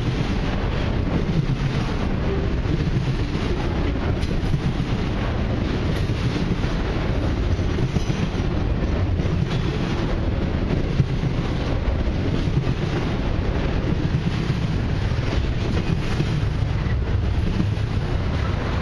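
Double-stacked container cars of a long intermodal freight train rolling past close by: a steady rumble of steel wheels on rail with clickety-clack.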